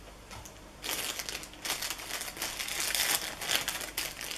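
Crinkling and crackling of blind-box packaging being torn and worked open by hand, starting about a second in and going on as dense irregular crackles.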